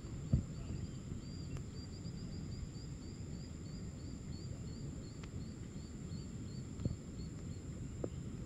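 Riverside wildlife ambience: a long run of short, high chirps, about three a second, from an unseen small animal, over a steady low rumble and a steady high whine. A few soft knocks, one just after the start and two near the end.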